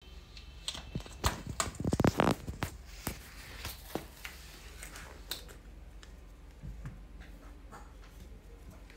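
A cat scrabbling about with a small plastic ball on a tiled floor: scattered clicks, scrapes and rustles, with a louder burst of scraping about two seconds in.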